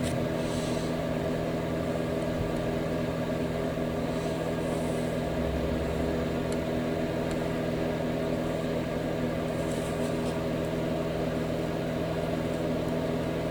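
A steady mechanical hum with several constant tones, unchanging in level.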